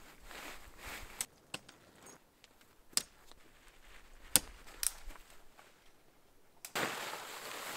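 Sections of aluminium tent poles clicking together as a dome tent is put up: a handful of sharp, separate clicks, the loudest about halfway through. About a second of rustling near the end.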